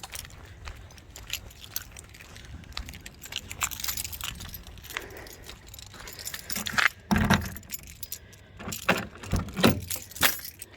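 Small metal pieces jingling and clinking in short clicks, with a few dull thumps about seven seconds in and again near the end.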